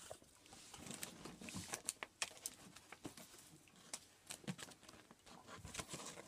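Faint, irregular taps and scrapes of a cardboard shipping box being handled and turned, with scissors working at its packing tape.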